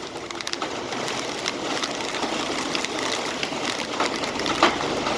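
Car driving through city streets in the rain: a steady hiss of rain and wet road with scattered irregular ticks, and one sharper knock a little before the end.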